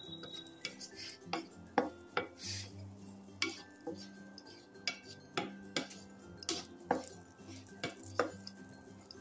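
Raisins being stirred while they roast in a pan: a utensil knocks and scrapes against the pan in irregular clinks, roughly two a second.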